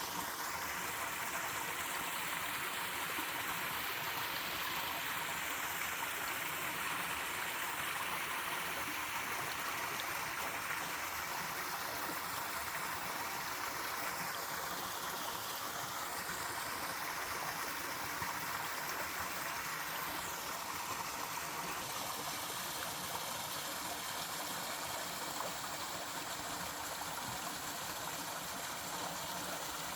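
Small waterfall on a mountain stream, water falling in a steady rush.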